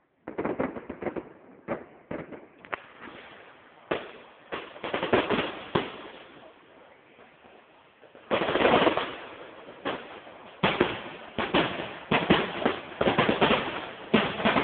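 Fireworks finale: rapid volleys of aerial shell bursts and crackle, easing off briefly around the middle, then a denser barrage from about eight seconds in.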